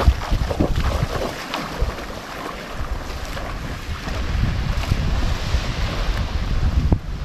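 Wind buffeting the microphone over waves and sloshing sea water, with a few knocks in the first couple of seconds and a sharp click near the end.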